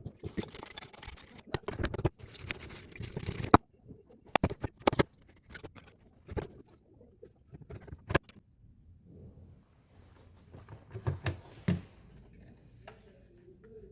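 Scrubbing and rubbing over the freshly soldered circuit board as flux is cleaned off, for the first few seconds, then scattered light clicks and taps of handling.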